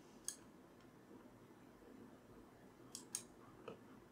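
Computer mouse clicks over quiet room tone: one click just after the start, then two quick clicks about three seconds in and a faint one just after.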